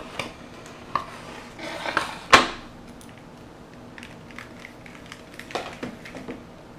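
A black packaging tray and a coiled LED light strip being handled on a wooden table: rustling and light clatter, with one sharp knock a little over two seconds in as the tray is put down, and a few more small ticks near the end.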